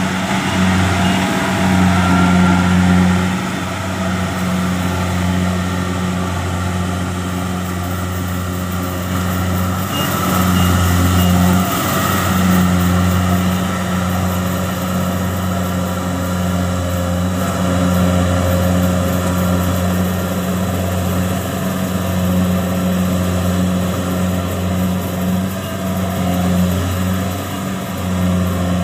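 Kubota DC-70 combine harvester running steadily while harvesting rice, its diesel engine and threshing machinery giving a continuous low hum with small swells in level.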